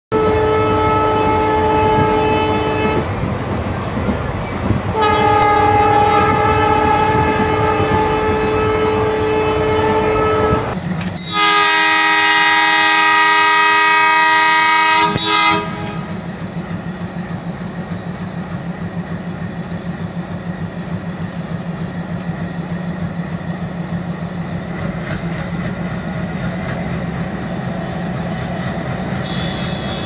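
Diesel locomotive horns sound in long blasts, the third one the loudest. From about halfway through, the Erode WDM3D's sixteen-cylinder ALCO diesel engine chugs steadily as the train moves off.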